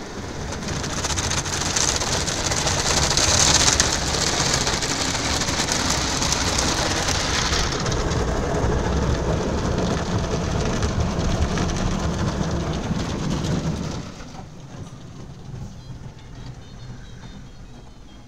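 Automatic car wash water jets spraying and drumming on the car's windshield and body, heard from inside the cabin. The spray builds over the first couple of seconds and then falls away sharply about three-quarters of the way through.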